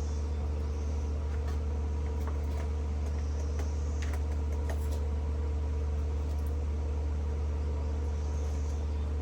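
Exhaust fan running with a steady, even hum, pulling chainsaw fumes out of the garage.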